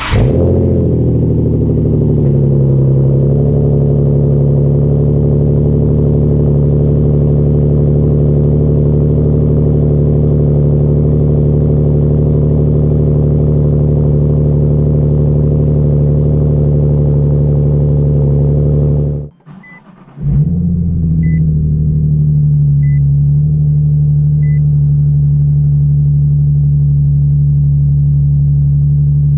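Nissan 370Z Nismo's 3.7-litre V6 through an AAM Resonated Short Tails axle-back exhaust, just fired from cold: it flares briefly, then settles to a steady, deep high cold idle, heard at the tailpipes. About two-thirds through, a second cold start of the same car heard from inside the cabin: the engine catches and settles to a steady idle, with about four faint chime beeps.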